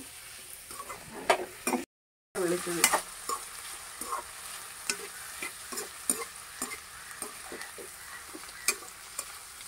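Chopped bitter gourd frying in hot oil in a pan, sizzling steadily, while a slotted spatula stirs it with many short scrapes and clacks against the pan. The sound cuts out for a moment about two seconds in.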